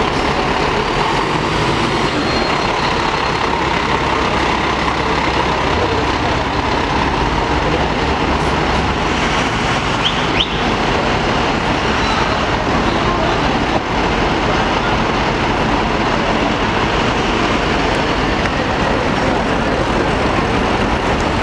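A fire engine's diesel engine running with a steady low rumble and then driving past, amid continuous city street traffic noise.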